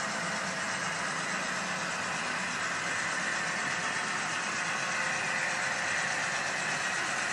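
HO scale model diesel locomotive hauling a passenger train along the track: a steady engine-like running hum that grows slightly louder as the train approaches.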